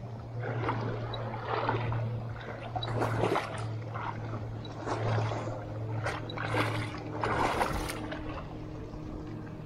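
Small waves lapping and splashing in shallow water over rocks, coming in several irregular swells, over a steady low hum.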